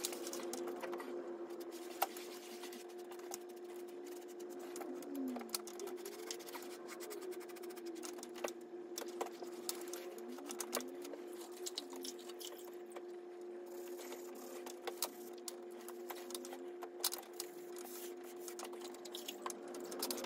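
Damp scrubbing sponge rubbing and dabbing over fresh patching plaster on a ceiling, giving faint irregular scratchy clicks and scrapes over a steady low hum.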